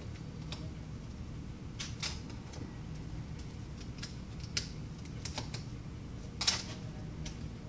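Irregular light clicks and taps, about one a second and the loudest a little after six seconds in, over a steady low hum: hand tools working at the edge of an iPad 3's glass while it is being separated from the frame.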